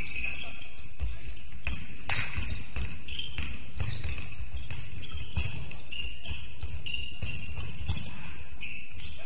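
Basketball game play: a ball bouncing on the court with low thuds about twice a second, and sneakers squeaking on the floor. A sharp knock comes about two seconds in.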